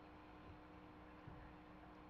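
Near silence: room tone with a faint steady hum, and two very soft faint bumps.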